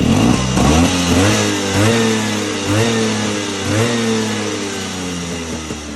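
Vespa PX two-stroke engine with a DR 180 cylinder kit blipped four times, about once a second, each rev rising and falling back, then the revs settle down toward idle. The revs drop back promptly, which the owner takes as the sign of the right fuel mixture after rejetting; lingering revs would mean a lean mixture.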